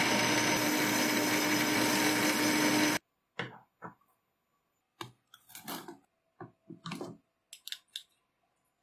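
Small screwdriver part spinning in a motor-driven chuck and being polished with an abrasive pad: a steady hiss with a constant hum that cuts off suddenly about three seconds in. Then a string of light clicks and taps as small metal parts and tools are handled on a wooden bench.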